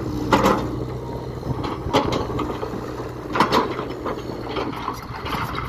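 Mini excavator's engine running steadily while its bucket scrapes through loose stones, with sharp clattering knocks of rock about half a second in, at two seconds, and around three and a half seconds.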